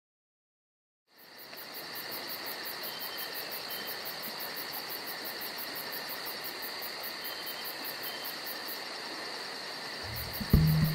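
Silence for about a second, then a tropical forest insect chorus fades in and holds steady: a constant high-pitched trill with a rapid pulsing chirr above it and a few short high notes. Low music comes in near the end.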